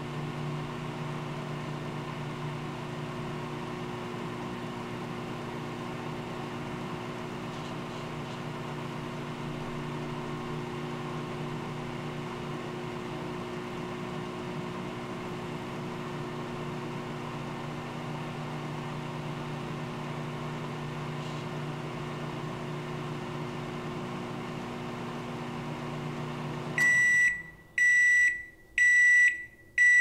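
Microwave oven running with a steady hum, which stops about 27 seconds in. It is followed by high beeps about once a second, the end-of-cycle signal.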